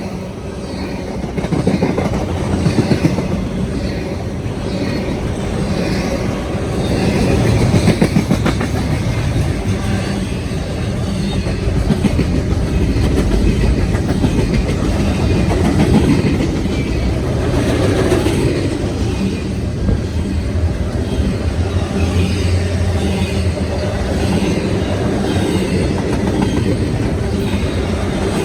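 CSX southbound freight train passing fast, its cars rolling by with a loud, steady rumble and wheels clicking rhythmically over the rail joints.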